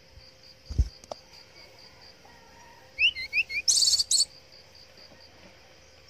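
A brown-chested jungle flycatcher gives four quick rising whistled notes about three seconds in, then breaks into a loud, harsh rattling burst lasting about half a second. A dull thump comes near one second in, and an insect pulses steadily in the background.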